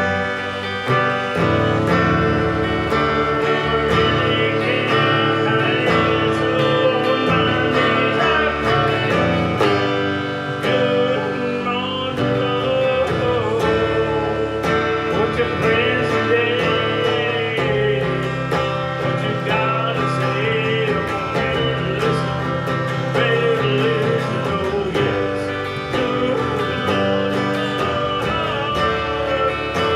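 Live country music with guitar: an instrumental break with no sung words, plucked and strummed strings carrying the tune.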